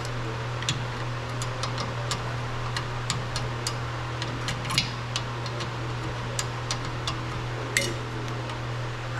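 Sharp, irregular metal clicks and taps from hand tools working on truck drum-brake parts, over a steady low hum.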